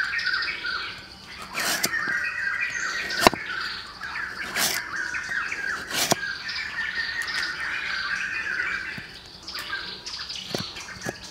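Heavy cleaver chopping slices off a root on a wooden block: a handful of sharp knocks about a second and a half apart, the second the loudest, over steady chattering and chirping of birds.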